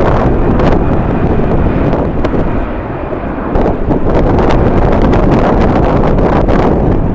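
Strong wind buffeting the camera microphone: a loud, low rumbling noise that eases briefly about three seconds in, then comes back.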